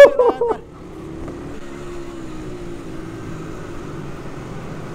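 Engine of a 100 cc single-speed pit bike running at the track, a steady engine note whose pitch wavers slightly.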